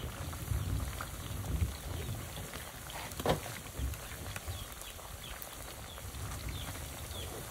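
Slices of root crop frying in bubbling dark syrup in a pan over a wood fire, with a metal spatula turning them now and then. An animal calls once about three seconds in.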